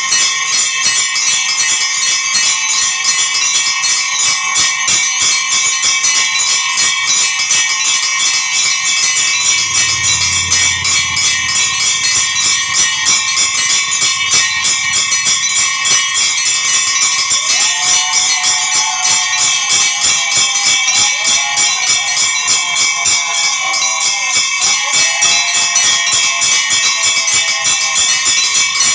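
Temple bells ringing rapidly and continuously, a dense run of strikes with their tones ringing on. From a little past halfway a wavering, repeatedly falling tone sounds over the bells.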